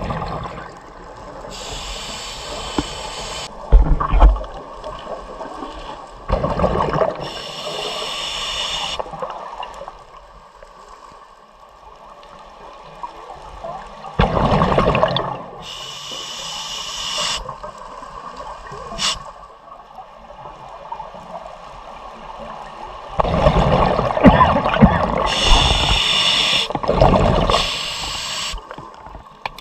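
Scuba diver breathing through a regulator underwater: hissing inhalations a couple of seconds long, alternating with louder bursts of exhaled bubbles.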